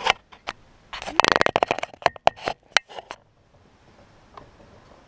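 Handling noise from the camera being moved and a clear plastic container being set against a mower deck: a string of clicks and a quick dense rattle, stopping about three seconds in.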